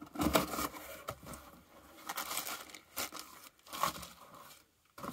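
Cardboard parts box being opened and handled: an irregular series of crinkly rustles and scrapes as the flaps are folded back and a tie rod end is lifted out.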